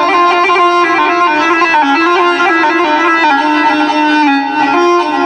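Electronic keyboard playing a sustained melodic interlude in a reedy, bagpipe-like voice, holding notes and moving from one to the next in steps, between the sung lines of an Iraqi mawwal.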